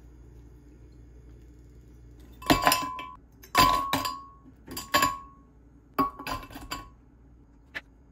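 Ice cubes and tomato chunks dropped into a glass blender jar: four clusters of sharp clinks, several leaving a brief ringing of the glass.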